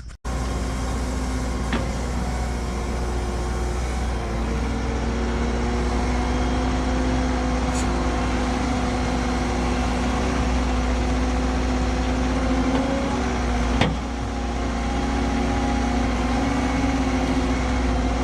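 Cat 314E excavator's diesel engine running steadily, with a steady mechanical whine over the engine note. A faint click about 2 s in and a sharp knock about 14 s in.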